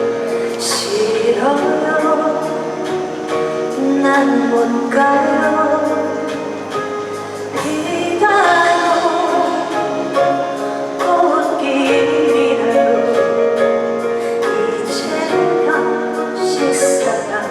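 A woman singing a slow trot ballad live, held notes over a musical accompaniment.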